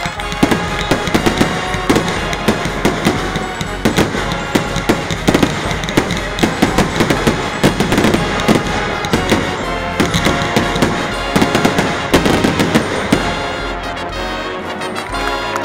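Fireworks bursting and crackling in quick succession over music that plays throughout; the bursts thin out near the end.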